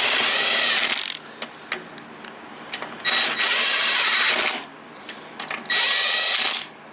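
Cordless drill running in the cylinder head bolts on a Toro mower engine, spinning in three runs of about a second each with short pauses and small clicks between. The bolts are only being run down snug, not tightened, ahead of torquing.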